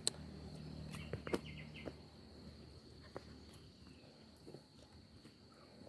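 Faint outdoor ambience: a steady, high-pitched insect buzz, with scattered light clicks and footsteps on the ground, most of them in the first two seconds.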